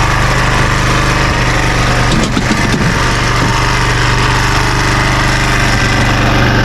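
Arctic Cat Prowler 500 side-by-side's single-cylinder engine running at a steady, fast idle after carburetor and fuel work. It doesn't want to idle down, which the mechanic puts down to the throttle adjustment. A brief unevenness comes about two seconds in.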